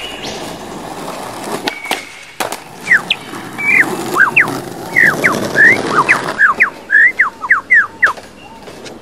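Superb lyrebird singing: a rapid string of short whistled swoops and chirps, starting about three seconds in. Mixed with it is a skateboard rolling over asphalt, with a couple of sharp clacks before the song begins.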